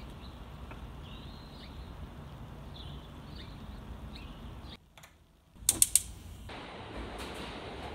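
Gas stove burner's igniter clicking three times in quick succession, sharp and loud. Before the clicks there is a steady low background rumble with faint high chirps, which cuts to near quiet just before them. A steady rushing noise follows the clicks.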